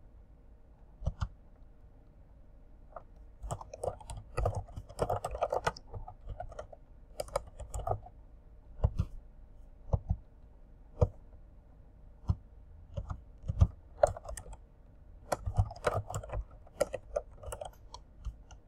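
Typing on a computer keyboard: irregular runs of keystrokes broken by short pauses and single key presses.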